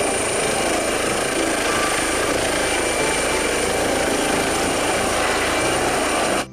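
Air ambulance helicopter lifting off and climbing, its rotor beating with a steady high turbine whine. The sound cuts off suddenly near the end.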